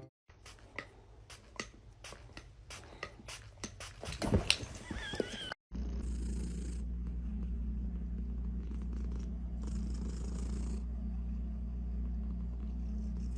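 A cat purring, a steady low rumble that starts after a cut about five seconds in. Before it come scattered light clicks and taps.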